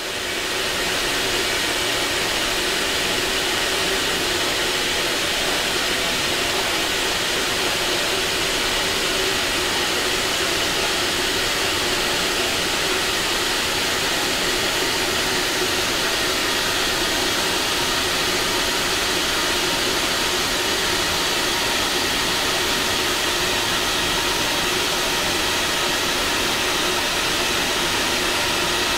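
Steady roar of Oertli forced-draught natural-gas burners firing steam boilers, a constant blowing rush with faint steady tones over it.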